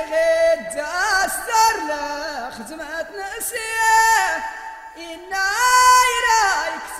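Amazigh (Tashelhit) rways song: singing in long, bending and wavering notes, phrase after phrase.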